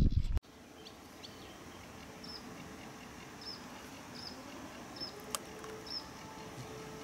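Quiet outdoor background with a small bird repeating a short high chirp about once a second, and one sharp click about five seconds in. Just after the start, a loud low noise stops abruptly.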